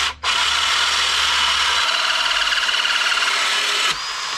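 Cordless drill driving a 57 mm hole saw through a wooden cladding board, cutting with a steady loud grinding for nearly four seconds. The sound then drops to a lighter whine before stopping.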